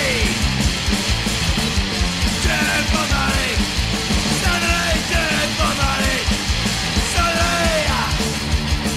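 Late-1980s Scottish hardcore punk recording playing: shouted vocals in short phrases over distorted guitar, bass and drums.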